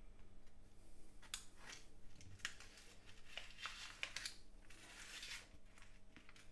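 Kitchen knife cutting through a baked tart's pastry in a foil tin: a scatter of faint crackles and soft clicks as the blade presses through the crust and against the foil. A steady low hum runs underneath.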